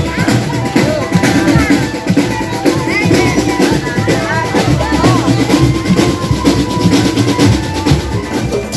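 Marching drum band playing: snare and bass drums beating fast and dense, with some pitched notes over the drumming.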